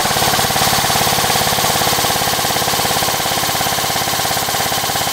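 ICS CXP-UK1 MTR airsoft electric rifle firing a long full-auto burst, its gearbox cycling in a rapid, even rattle of shots. The steady fire shows the Modify mid-cap magazine feeding without trouble.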